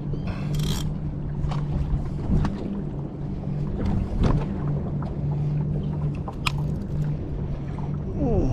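Small boat's motor running steadily, a low hum that wavers slightly, with a few brief clicks and a short hiss about half a second in.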